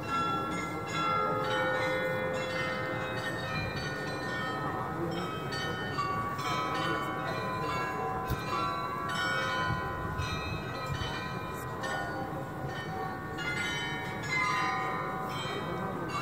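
Bells of the Munich Rathaus-Glockenspiel playing a tune, note after note struck and left ringing.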